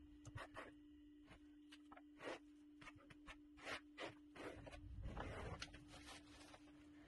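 Faint scraping of a trowel spreading feather finish concrete over a countertop, in short irregular strokes with a longer stretch about five seconds in; a steady hum runs underneath.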